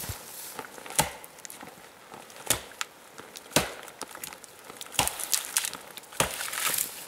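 Sharp wooden knocks and cracks, like wood being chopped: a solid chop every second or so, lighter cracks between, and a busier stretch of crackling near the end.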